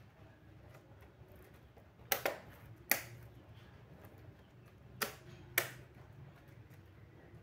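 Sharp plastic clicks from a Dell laptop being handled as its keyboard is pressed back into place: four clicks in two pairs, about three seconds apart.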